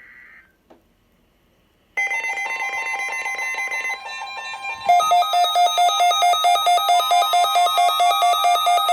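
NOAA Weather Radio warning alarm test. After a short click and a moment of silence, an electronic alert tone starts about two seconds in. About three seconds later a louder, fast-pulsing beeping alarm joins it, about five beeps a second.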